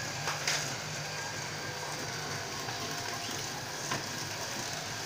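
Steady low background hum with a light tap about half a second in, as a clear plastic cup of popcorn is handled on the stack, and a fainter click near four seconds.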